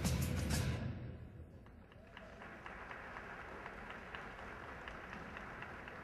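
The free dance music stops about a second in, and then the audience applauds with scattered hand claps.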